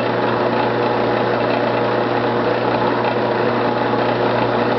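Metal lathe running steadily at slow speed, about 50 RPM: an even motor hum with a few constant tones over a light mechanical noise.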